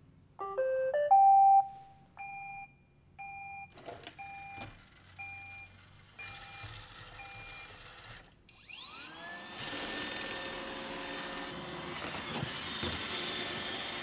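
iRobot Roomba 800-series robot vacuum playing its short rising start-up tune, followed by a quieter beep that repeats about once a second and fades. About eight and a half seconds in, its vacuum motor spins up with a rising whine and settles into a steady whirring run.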